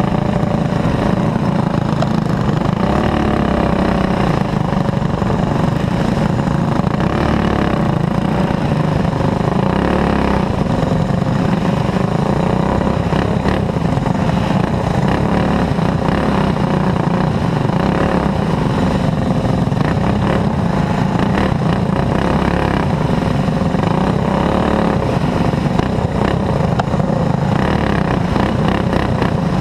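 Racing kart's single-cylinder four-stroke clone engine running hard at racing speed, heard close up from on board, its pitch wavering only slightly as it runs through the turns.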